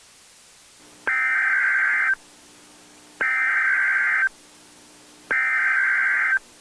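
Emergency Alert System SAME header: three identical bursts of digital data tones, each about a second long with about a second between them. This is the coded header that opens a new alert. A faint low hum sounds between the bursts over steady hiss.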